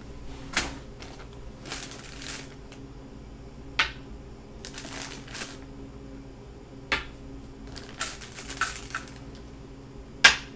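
White clamshell Go stones set down one at a time on a shin-kaya tabletop Go board: four sharp clicks a few seconds apart, the last one the loudest, with rustling of stones being handled in a plastic bag between them.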